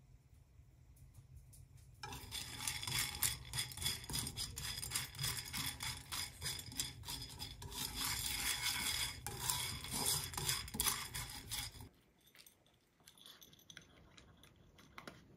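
Dry dog kibble rattling and scraping in a nonstick frying pan as it is stirred with wooden chopsticks to toast it, a dense clicking from about two seconds in until about twelve seconds in. After that comes quieter faint clicking as a small dog eats the kibble from a ceramic bowl.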